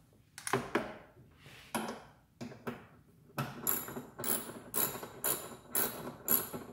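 Ratchet wrench with an 8mm socket working a glove-box mounting bolt loose: a few knocks and clicks as the socket goes onto the bolt, then from about three and a half seconds in, ratchet strokes with metallic clicking repeating about twice a second.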